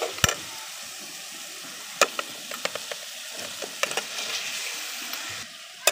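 Fried chicken pieces going into spiced masala sizzling in a karai, with a spoon or spatula knocking and scraping against the pan as they are stirred in. Sharp knocks come just after the start and about two seconds in.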